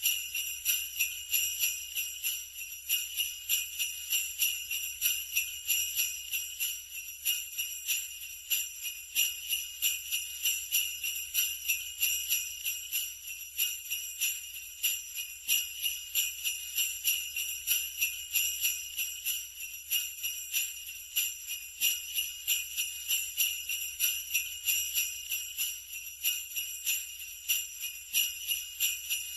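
Sleigh bells, a cluster of small metal jingle bells, shaken in a steady rhythm of roughly two to three shakes a second without pause.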